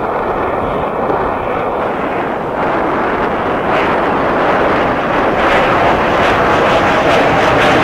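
Jet roar of a USAF F-22 Raptor's twin Pratt & Whitney F119 turbofans during a demo pass overhead, a dense steady rush that grows louder and brighter from about halfway through.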